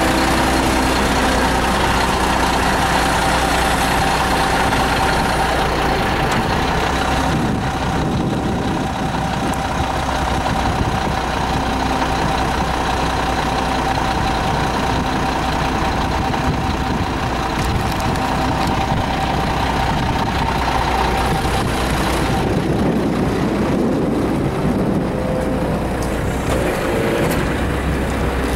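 Sisu slurry truck's Mack engine running steadily, with a steady whine over it that stops about three quarters of the way through.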